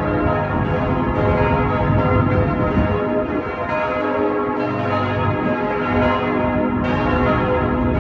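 Several church bells pealing together, their overlapping tones ringing on continuously with fresh strikes throughout.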